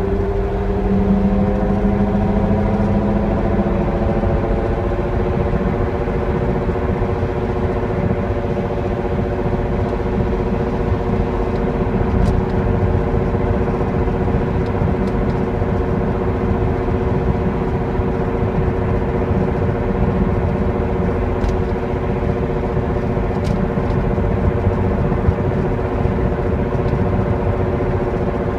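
Whining drone from the rear of a 2008 BMW 325i E91, several steady tones that rise a little in pitch over the first few seconds and then hold, over a heavy low road rumble.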